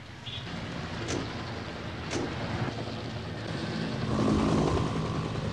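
A vehicle engine runs steadily and grows louder about four seconds in. Two sharp cracks come about one and two seconds in.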